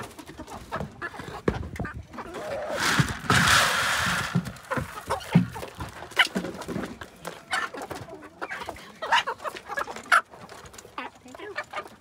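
Silkie and frizzle bantam Cochin hens clucking and pecking, with a rush of pellet feed poured into their dish about three seconds in, lasting a second and a half.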